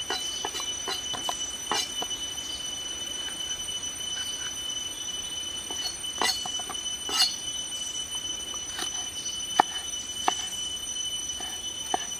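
A steady high-pitched drone with irregular sharp clicks and snaps, the loudest click about nine and a half seconds in.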